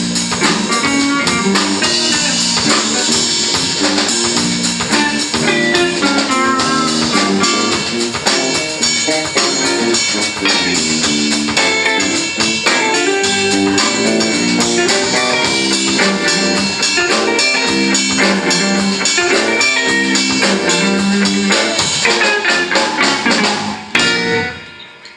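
Live instrumental funk from a small band of electric guitars, electric bass and drum kit, playing at full volume and coming to a stop about a second before the end.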